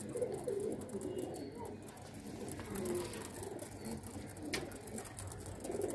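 A flock of domestic pigeons cooing, low overlapping coos repeating throughout, with a single sharp click about four and a half seconds in.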